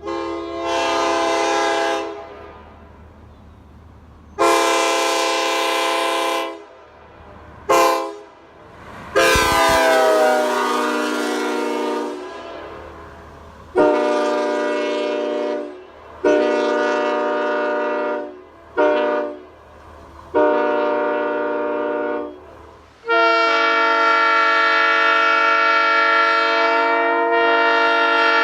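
Nathan Airchime K5LLA five-chime air horn sounding a chord in a run of nine blasts of varying length, two of them very short. The last blast is held steadily for several seconds. A low hum can be heard in the gaps between blasts.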